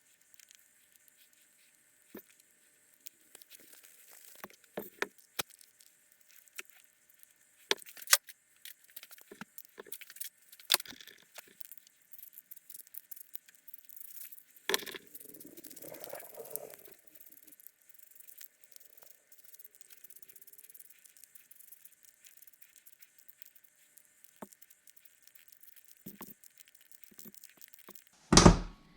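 Scattered clicks, taps and light metallic rattles of small fuel-pump parts and hand tools being handled as a rebuilt snowmobile fuel pump is put back together, with one louder knock near the end.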